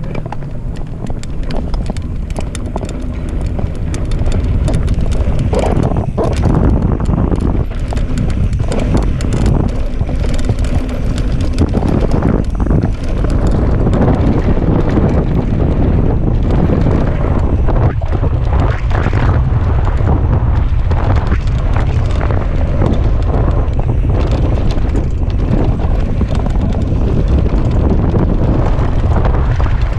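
Mountain bike riding fast down a dirt trail, heard through a GoPro's microphone: wind buffeting the microphone in a constant low rumble, with tyres on loose dirt and the bike's frame and chain rattling irregularly over the bumps. It gets louder about four seconds in as the bike picks up speed.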